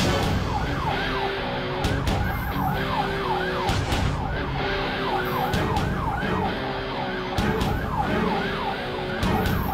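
Police car siren on a fast yelp, about three falling sweeps a second, heard from inside the moving patrol car over engine and road rumble.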